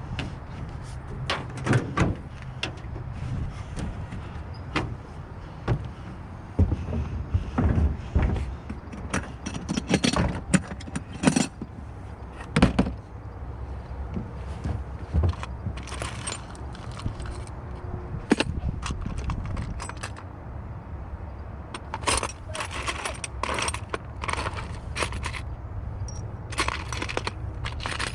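Irregular clinks and clatters of small metal hardware, bolts and screws being rummaged through and handled, over a steady low hum.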